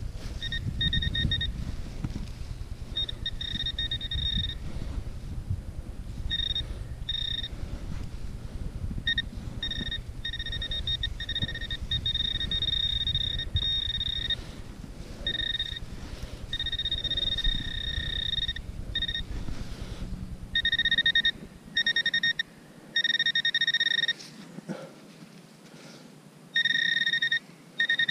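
Handheld metal-detecting pinpointer sounding its steady high alert tone in repeated on-and-off stretches, from brief blips to holds of about two seconds, as it is probed around the dug hole: the sign that it is close to a buried metal target. A low rumble runs underneath until about three-quarters of the way through.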